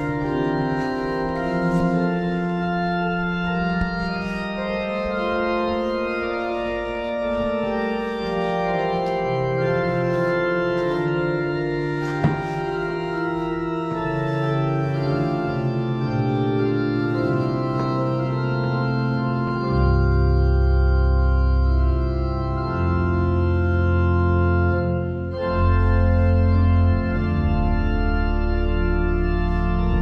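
Church organ playing slow, sustained chords. From about two-thirds of the way through, deep bass notes come in under them.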